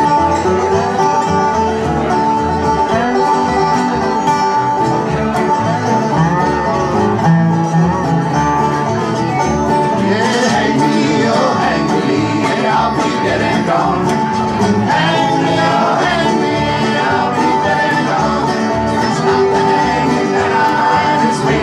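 A live string band playing a bluegrass tune on banjo, acoustic guitar and upright bass. Voices come in singing about ten seconds in.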